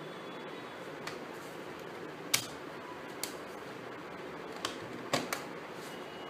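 Laptop battery pack being pressed into its bay on the underside of an HP Pavilion 15 laptop: five sharp plastic clicks as it is seated, the loudest about two seconds in. A steady hiss runs beneath.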